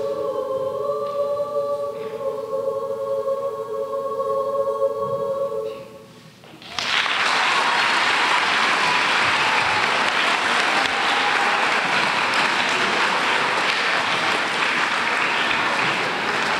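A choir holds a sustained final chord that ends about six seconds in. After a brief pause the audience breaks into loud, steady applause that lasts to the end.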